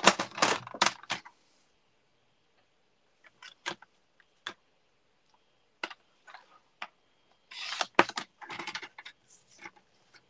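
A craft paper trimmer clattering as it is handled at the start, then a few light clicks and taps as paper is lined up on it. About seven and a half seconds in, its blade carriage is slid along the rail, cutting the paper with a scraping run of clicks that lasts about two seconds.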